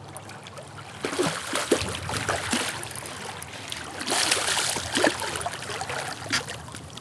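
Hooked smallmouth bass splashing at the river surface, in two spells of splashing that start about a second in and again about four seconds in.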